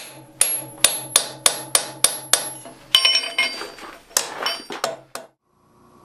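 Hand hammer striking a hand-held top tool on a red-hot iron bar on the anvil, forging an offset: a quick run of ringing metallic blows, about three a second, in three bursts with short pauses, stopping a little after five seconds in.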